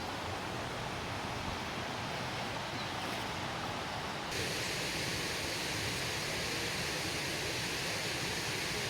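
Waterfall's falling water rushing in a steady hiss, which turns louder and brighter suddenly about four seconds in.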